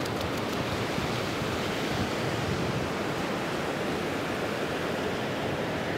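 Ocean surf washing up over a flat sandy beach: a steady rush of breaking waves and foaming water running in over wet sand.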